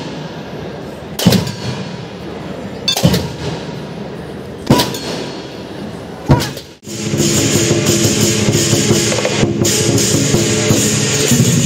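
Chinese lion dance drums struck in single heavy beats about every second and a half, each beat ringing on. About seven seconds in this gives way to a dense, continuous roll of drum with cymbals and gong ringing.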